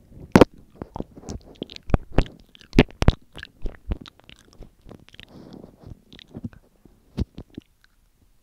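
Mouth licking and lip smacking right on a microphone: an irregular run of wet clicks and smacks, the sharpest about half a second in and around three seconds in.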